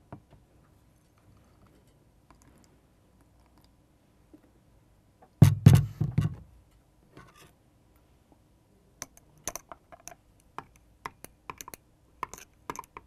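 A thin metal stirring rod clicking against a glass beaker as dry yeast is stirred into warm water: a run of quick, sharp clicks from about nine seconds in. Before that, about five and a half seconds in, a short cluster of loud knocks, the loudest sound here.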